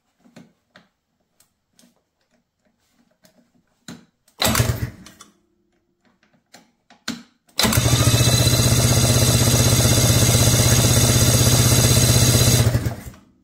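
Electric starter of a 1992 Ski-Doo Mach 1's two-stroke engine cranking it over off a jump pack: a short bump of about a second, then about five seconds of steady, rapidly pulsing cranking that stops. The engine turns over but does not fire, with the spark plugs out; the starter works.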